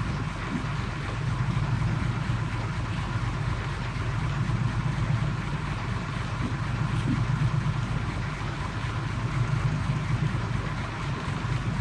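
Small fishing boat's engine running steadily at low revs, a constant low drone with wind and water noise over it.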